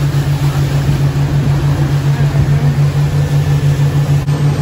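Tour boat's engine running under way: a loud, steady low drone that pulses about five times a second, under a rushing hiss of wind and water.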